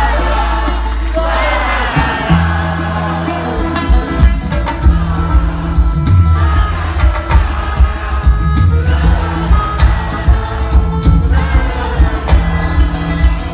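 Live band music with a steady beat and held bass notes, singing or vocal calls at the start, and some crowd whooping.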